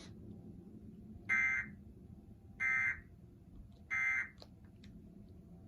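Emergency Alert System end-of-message signal from a television broadcast: three short digital data-tone bursts, each under half a second and about 1.3 seconds apart, marking the end of the alert.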